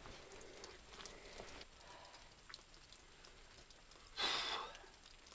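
Rain dripping and pattering on a sandstone rock overhang: faint scattered drips over a soft hiss. About four seconds in, a brief rustling noise lasts about half a second.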